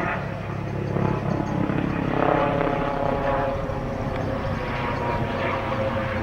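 Helicopter flying over, its rotor and engine running with a steady drone.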